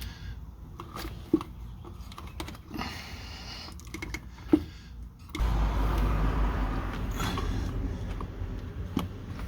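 Rubber rack-and-pinion bellows being twisted and worked onto the steering tie rod: a couple of sharp clicks, then about halfway through a louder, steady rubbing and scraping of the rubber boot against the rod and hands.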